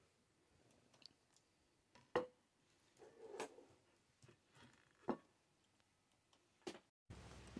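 Quiet room with a handful of faint knocks and clicks from a ceramic dinner plate being handled and set on a wooden desk, the sharpest about two seconds in and another about five seconds in.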